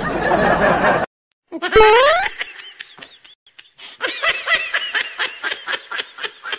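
A burst of noise that cuts off about a second in, then a short loud rising whistle-like glide around two seconds in. After that, high-pitched laughter in quick repeated bursts for about two and a half seconds.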